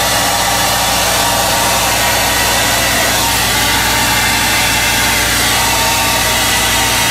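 Conair Euro 1600 handheld hair dryer blowing steadily on a gelatin-coated mohawk, a loud even rush of air, with a steady low hum underneath.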